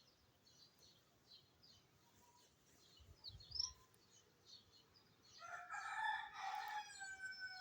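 A rooster crowing once: a single long call starting about five and a half seconds in, falling slightly in pitch at the end. Small birds chirp faintly throughout.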